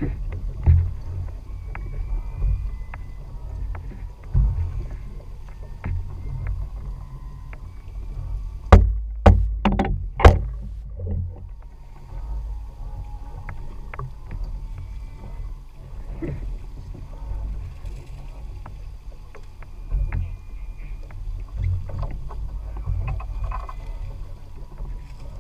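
Low rumble of a small boat rocking at sea, with scattered light knocks on the hull and deck. About nine seconds in comes a quick run of four sharp knocks, the loudest sounds.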